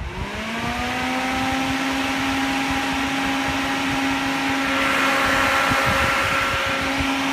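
Electric radiator cooling fan (thermo fan) switched on and spinning up: its hum rises in pitch over about the first second, then settles into a steady motor hum with a rush of air.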